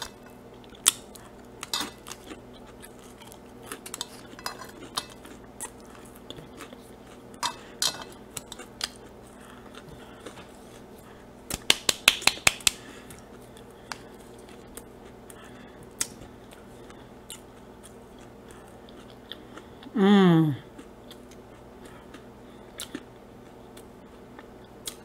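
Close-miked eating sounds: scattered mouth clicks and smacks as french fries are picked up and chewed, with a quick run of sharp clicks about halfway through. Late on, a short voiced "mmm" falls steeply in pitch and is the loudest sound.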